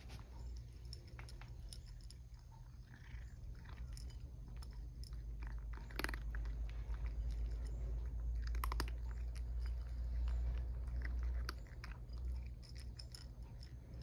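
A cat chewing dry kibble, with a run of short, irregular crunches and clicks.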